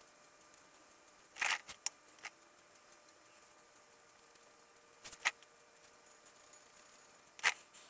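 Brush painting: a few short, light clicks and taps from a paintbrush and a small open paint tin as paint is applied to metal vise parts. The taps come in a cluster about a second and a half in, a pair about five seconds in, and one more near the end.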